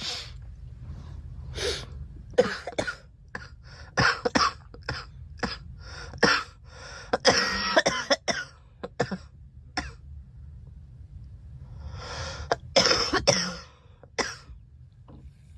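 A young woman coughing in fits: a long run of short coughs for about nine seconds, a pause of a couple of seconds, then another burst of coughs near the end.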